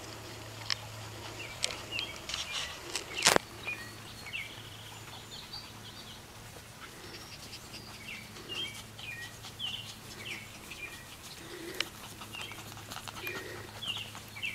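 Songbirds chirping in the background with short scattered calls, over a faint low hum. Light clicks and rustles come and go, and one sharp knock about three seconds in is the loudest sound.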